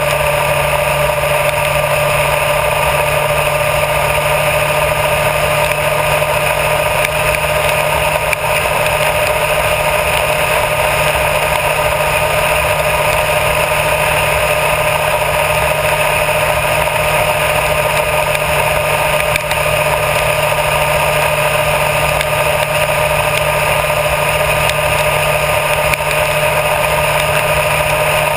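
Honda CBR1000RR Fireblade's inline-four engine running at steady revs while cruising, with wind and tyre noise mixed in, all heard on a camera mounted low on the front fork.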